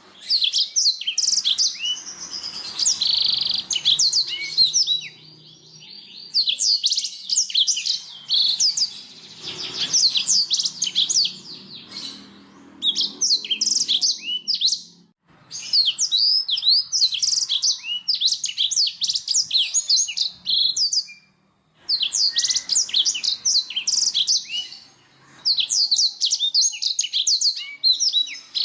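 Canary singing in long phrases of fast chirps and rolling trills, with short pauses between phrases.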